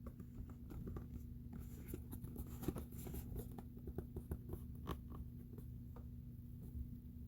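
Packaging being handled by hand during an unboxing: a run of small irregular clicks, ticks and rustles of cardboard and plastic, busiest in the first half, over a steady low hum.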